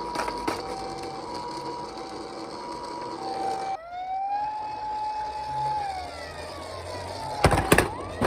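Toy ambulance minicars' electronic sirens sounding the Japanese two-tone 'pi-po' ambulance siren, alternating high and low about every half second. Nearly four seconds in it switches to a single tone that rises, holds and falls. A few loud knocks come near the end.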